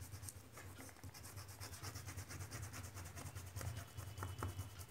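Fingertips rubbing back and forth over oil pastel on a sheet of drawing paper, smudging and blending the colours: a faint, rapid, scratchy rubbing.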